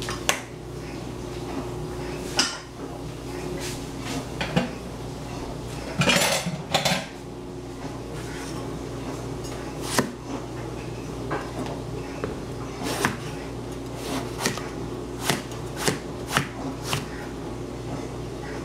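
Large cleaver chopping eggplant on a plastic cutting board over a tile counter: single sharp knocks as the blade strikes the board, one to two seconds apart at first and coming closer together later on. About six seconds in there is a longer noisy rustle. A steady low hum runs underneath.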